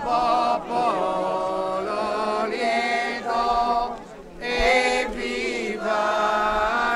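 A group of voices singing a hymn together in long held notes, with a short break about four seconds in.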